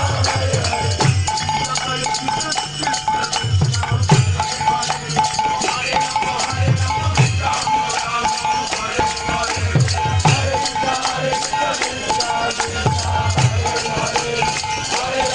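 Kirtan music: fast, steady metallic clicking of hand cymbals over a low drum that plays in short phrases about every three seconds, with a held tone underneath.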